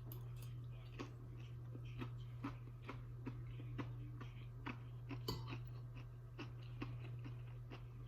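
A person chewing a meal: irregular soft mouth clicks and smacks, roughly one to three a second, with a sharper click a little past five seconds in, over a steady low hum.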